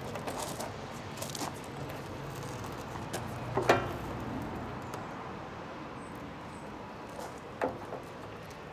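Rubber window seal being prised and pulled out of a VW T25 camper van's side window: scattered light clicks and scrapes, with one sharp squeak about three and a half seconds in and another click near the end.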